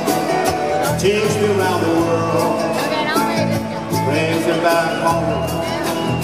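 Live band playing a country-flavoured rock song at full volume, with acoustic guitars, drums and keyboards under a singing voice.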